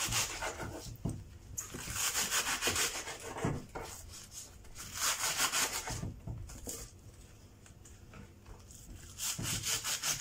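Kitchen knife slicing through leeks onto a wooden chopping board: quick strokes in several bursts, with a quieter stretch about seven to nine seconds in.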